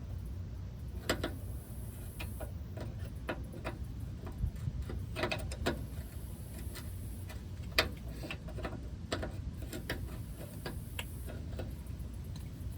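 Irregular metallic clicks and taps of a wrench being worked on a stripped brake line nut under a truck, with one sharper click a little past the middle. A low steady hum runs underneath.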